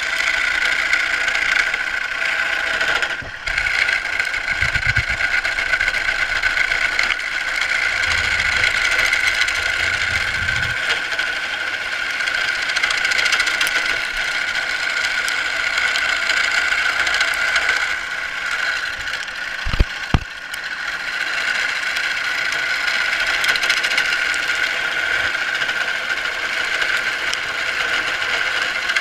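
Craftsman wood lathe running steadily with a wooden spindle spinning as it is worked by hand. Two sharp knocks just before twenty seconds in.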